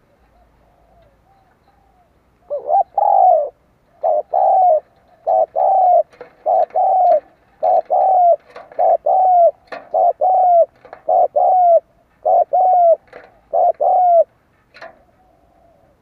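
Spotted dove cooing close by: after a few faint soft notes, a loud run of paired coos, a short note followed by a longer falling one, about one pair a second.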